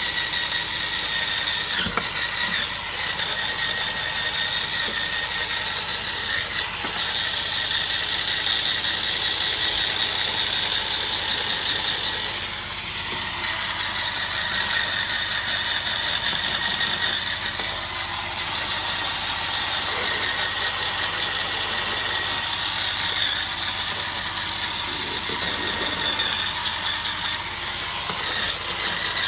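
Hurricane Spin Scrubber motorised brush running steadily, its motor and gears whirring as the spinning brush head scrubs around the base of a wet chrome kitchen tap and the sink.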